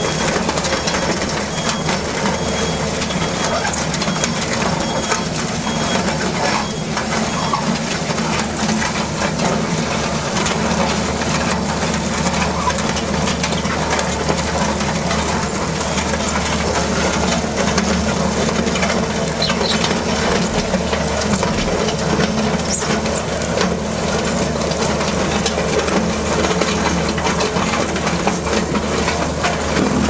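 Simex CB rotor crusher bucket on a compact track loader crushing demolition rubble: the loader's engine runs steadily under load over a constant clatter of broken stone and concrete in the bucket.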